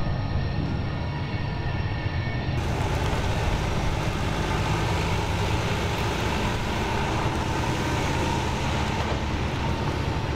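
An engine running steadily with a low, even hum. About two and a half seconds in, the sound turns brighter and hissier.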